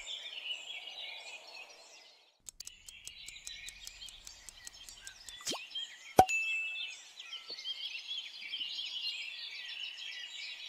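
Quiz-video sound effects over a faint chirping background: a fast, even ticking runs for about three seconds as a countdown, then a falling whoosh ends in one sharp pop about six seconds in.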